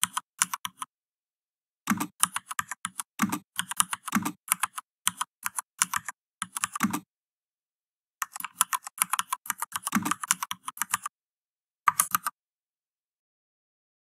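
Simulated mechanical-keyboard keystroke clicks from the Mechvibes typing-sound software, one click per key press, in quick runs of typing with short pauses. The typing stops a little after 12 seconds in.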